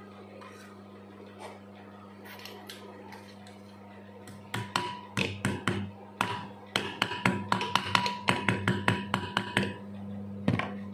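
A hammer striking the steel shaft of a ductable fan motor. The blows come in a quick series, about four a second, with a metallic ring, and one last blow comes near the end. A steady electrical hum runs underneath.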